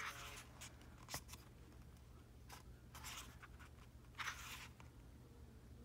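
Faint rustling of paper photo-book pages being turned by hand: a few soft swishes and a light click spaced through the quiet.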